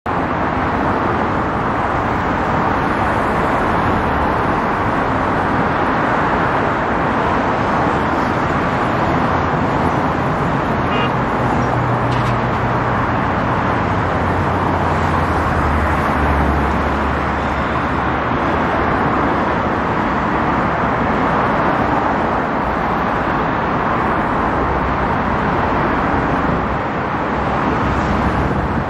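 Steady road traffic on a wet street: a continuous hiss of car tyres, with a heavier vehicle's low engine drone swelling and fading in the middle.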